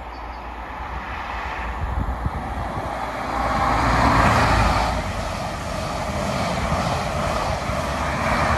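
A CrossCountry High Speed Train passing beneath: the Class 43 diesel power car builds to its loudest about four seconds in, then the coaches follow with a steady rumble over the rails.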